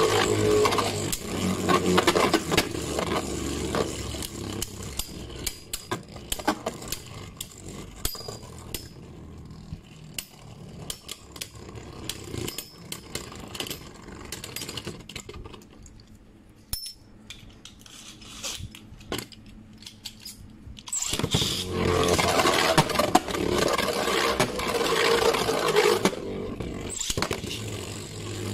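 Astral Spriggan and Guilty Longinus Beyblade Burst spinning tops whirring and scraping on a plastic stadium floor, with many small clacks. The sound dies down to a quieter stretch of sparse ticks as one top spins on alone, then turns loud again about three-quarters of the way through as both tops spin and clash.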